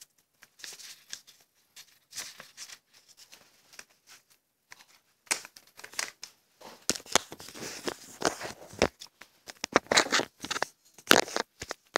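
Sheet of paper being handled and slid across a fabric mat, with irregular short rustles and scrapes that get busier and louder about halfway through. Toward the end there are rubs and knocks from the camera being handled.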